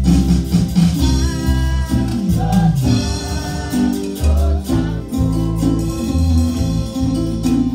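Live church worship music: a woman singing a gospel chorus into a microphone over an amplified band with guitar and a strong, stepping bass line.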